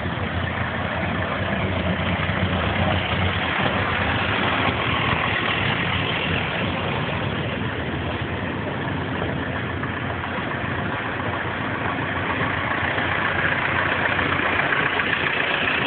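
Vintage tractor engines running steadily at low revs, with a red vintage tractor driving past near the end.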